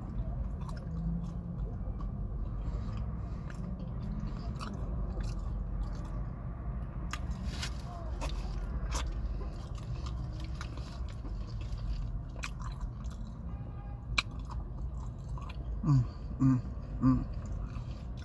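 Close-miked chewing and biting, with small wet mouth clicks, as someone eats. Near the end come three short hums of the voice, the loudest sounds in the stretch.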